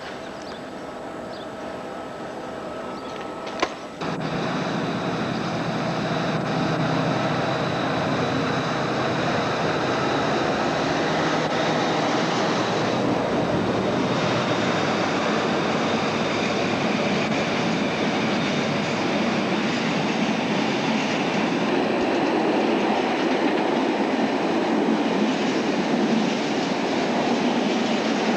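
Diesel locomotive hauling a train of loaded oil tank wagons passing close by, its engine giving a steady low hum over the noise of the wagons' wheels on the rails. The sound jumps sharply louder about four seconds in, just after a click, and stays loud as the tank wagons roll past.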